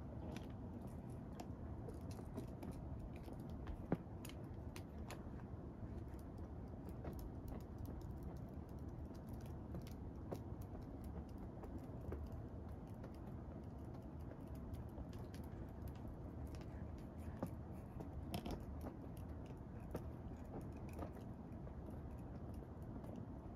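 Faint, scattered ticks and rustles of a feather wand toy being flicked across a woven bed cover, over steady low room noise, with one sharper click about four seconds in.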